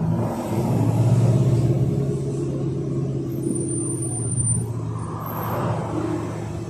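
Yutong ZK6890HGQ city bus's Yuchai YC4G200-50 engine running steadily as the bus drives, a low drone heard from inside the passenger cabin along with road noise; it is loudest about a second in.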